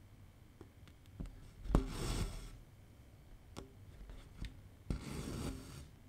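Cotton embroidery thread drawn through 18-count cross-stitch fabric stretched in a wooden hoop, twice. Each stitch gives a small tick of the needle, then a brief dry hiss as the thread is pulled through.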